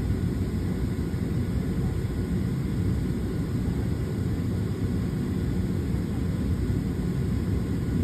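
Steady low rumble inside a Southwest Boeing 737's cabin on the ground, from the airliner's engines and air system, at an even level throughout.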